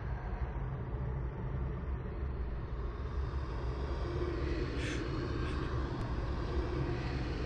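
A low, steady rumbling drone, with a woman's short gasping sob about five seconds in.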